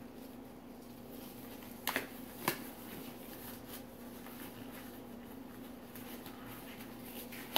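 Blue nitrile gloves being pulled onto the hands, with two sharp snaps of the rubber about two seconds in, over a steady low hum.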